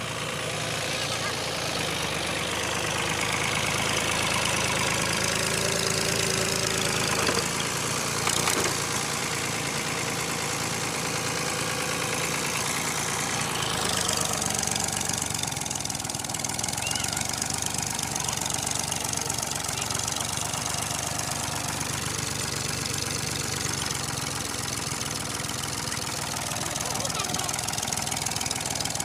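Fiat 480 Special tractor's three-cylinder diesel engine running as the tractor drives over soft sandy ground, with abrupt changes in the sound about a quarter and about halfway through.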